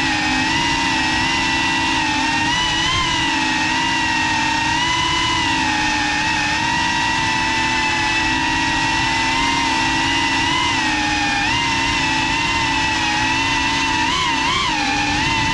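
FPV quadcopter's electric motors and propellers whining, the pitch wavering up and down together with the throttle over a low rush of air, with quicker wobbles near the end.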